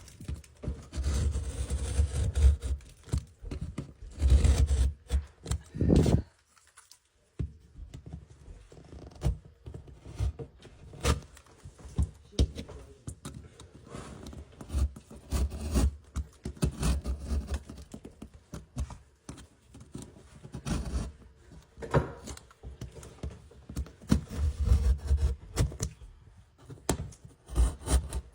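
Irregular scraping and knocking of a hand tool cutting a small square hole in a drywall wall, with a short pause about six seconds in.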